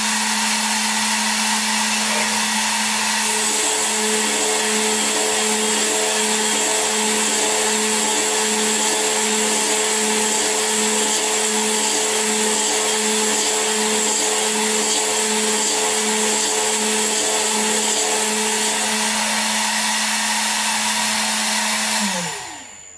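Milling-machine spindle running steadily at 13,000 RPM, a high whine, while a 3 mm HSS cutter mills a hole. From about three seconds in to near the end of the cut, a second tone and a regular pulsing join the whine as the tool works. About a second before the end the spindle is switched off, and its whine falls in pitch as it winds down.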